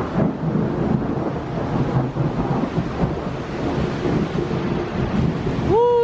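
Loud, irregular rumbling noise throughout, with a person's voice rising in an exclamation just before the end.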